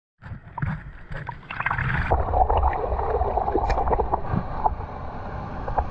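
Sea water sloshing and gurgling against a camera held at the waterline in the surf, with irregular small splashes and bubbly pops over a low rumble of breaking waves, getting louder about two seconds in.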